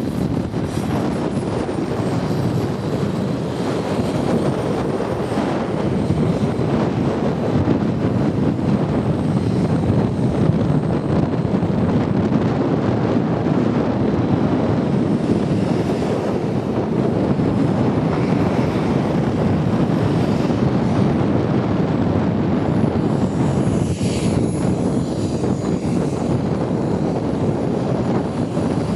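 Twin turbine jet engines of a Skymaster A-10 radio-controlled model jet running at low power through touchdown, rollout and taxiing: a steady rush with a thin high whine that drifts slowly up and down in pitch.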